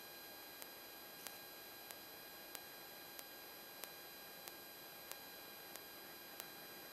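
Faint electrical hiss from a Cessna 172's intercom/radio audio feed between transmissions, with several steady high-pitched whine tones and a soft tick about every two-thirds of a second.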